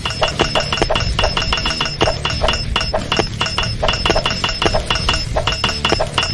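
Rapid, evenly paced clinks of a tool striking stone, about six a second, each with a short bright ring, over a low rumble: a boulder being chipped and carved into shape.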